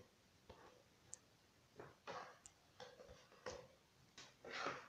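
Faint, scattered soft taps and rustles of a plastic bowl being lifted off risen yeast dough and the dough being handled on a board.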